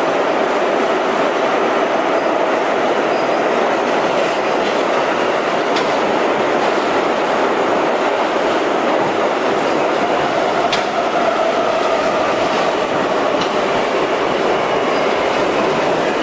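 Budd-built R32 subway car heard from inside while running between stations: a steady rumble and rattle of wheels on the rails, with a few sharp clicks.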